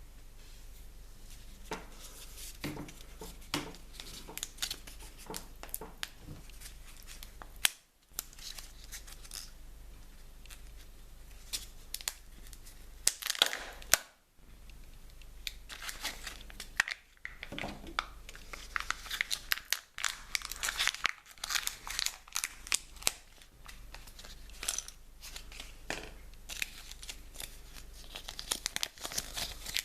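A surprise-egg wrapper being crinkled and torn open by hand, in a long run of irregular crackles with brief gaps.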